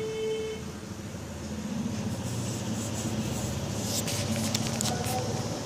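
A motor vehicle's engine running, with a brief steady horn-like note right at the start and a few sharp clicks about four to five seconds in.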